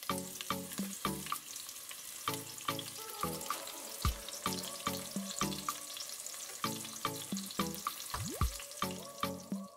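Red onion quarters sizzling in hot oil in an open pressure cooker, a steady hissing fry that starts as they hit the pan. Background music with a steady beat plays along.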